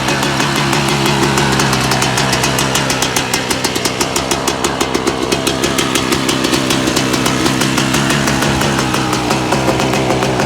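Motocross bike engine running steadily, mixed with background music that has a quick regular beat.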